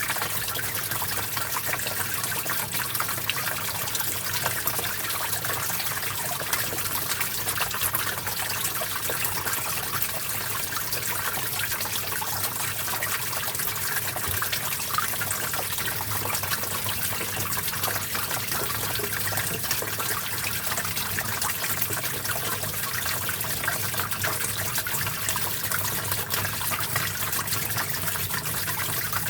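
Small stream flowing and trickling steadily, a dense even splashing patter with no pauses.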